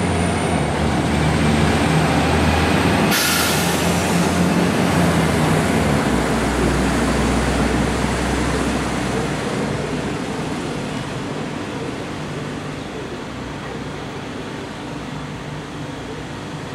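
DB class 425 electric multiple unit running through the station tracks below, its noise steady at first and then slowly dying away as it pulls off. A short hiss cuts in about three seconds in.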